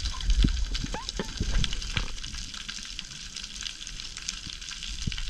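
Underwater reef crackle of snapping shrimp: a dense, steady sizzle of tiny clicks, with a few louder knocks in the first two seconds.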